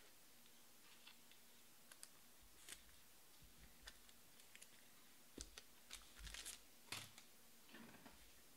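Faint scattered clicks and short rustles of trading cards being handled and shuffled through, a few louder ones bunched together about two-thirds of the way in.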